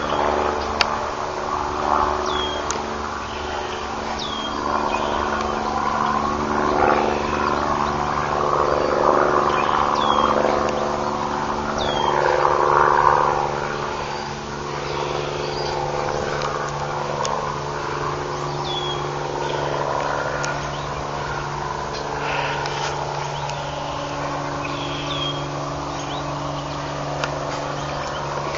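Distant helicopter flying over on an aerial spraying run, giving a steady droning hum that swells and fades as it passes. Short high chirps from a bird come every few seconds.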